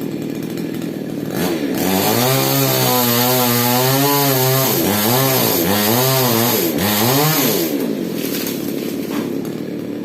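Falcon mini chainsaw running steadily, then revved hard about a second and a half in. Its engine note wavers up and down for several seconds, as under load while cutting mango wood, before dropping back to a lower run near the end.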